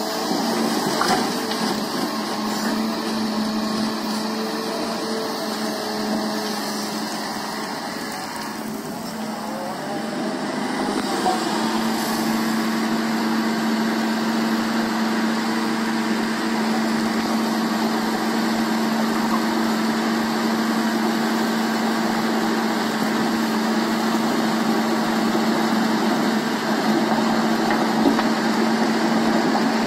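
Kobelco SK220 excavator's diesel engine running steadily while working a screening bucket. About ten seconds in, its hum shifts in pitch and grows a little louder, then holds steady.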